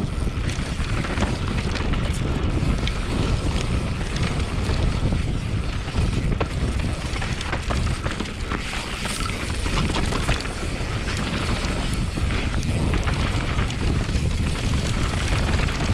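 Downhill mountain bike descending a dirt trail: steady wind rush over the microphone with tyre and trail noise and scattered short knocks and rattles from the bike.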